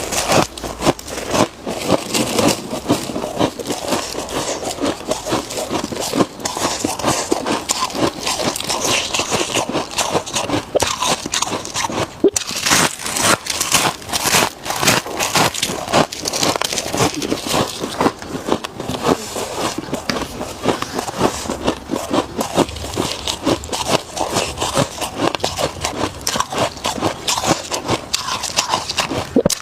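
Close-miked crunching and crackling of freezer frost being bitten and chewed, many quick crisp crunches in a steady run.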